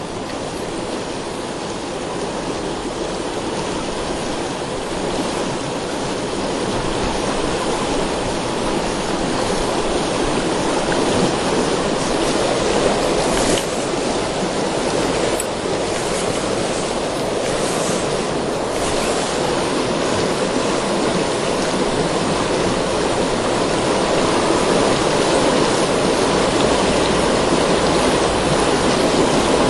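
Shallow river riffle running over stones: a steady rush of water, slowly growing a little louder.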